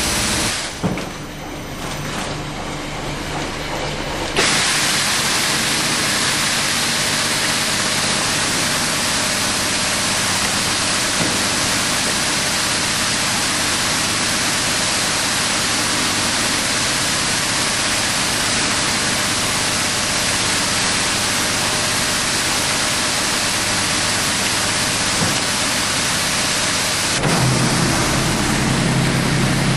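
F1000 vertical form-fill-seal packaging machine running, a steady mechanical noise that drops briefly about a second in and gains a deeper hum near the end.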